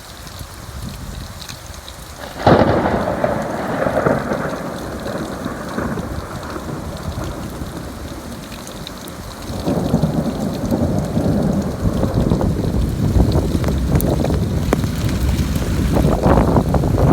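Thunder during a rainstorm. A sudden thunderclap about two and a half seconds in rolls away over several seconds, then a second, deeper rumble builds from about ten seconds in and goes on. Steady rain runs underneath.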